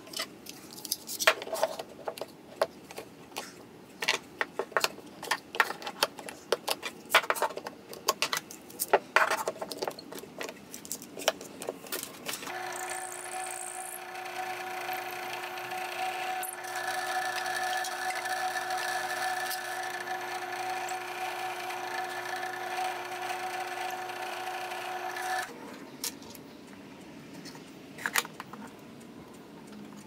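Scattered clicks and knocks of wooden parts being handled on a workbench. Then a small power tool's motor starts, runs at a steady pitch for about thirteen seconds and stops abruptly, followed by a few more knocks.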